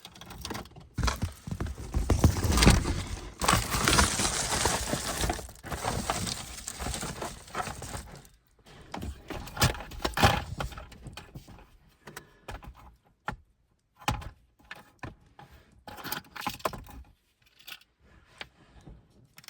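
Gear being handled inside a truck cab: loud rustling and clattering through the first half, then scattered clicks and knocks.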